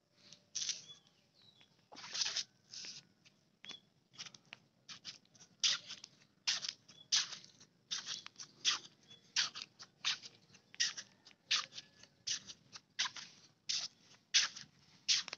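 Footsteps crunching on a sandy gravel path at a steady walking pace, about three steps every two seconds.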